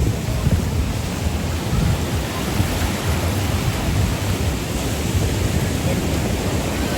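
Caribbean surf washing onto the beach, with wind buffeting the phone's microphone as a steady low rumble under the hiss of the water.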